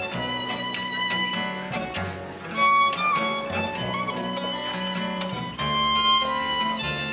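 Street band playing a tune: held melody notes over a moving bass line, with a steady rhythmic beat.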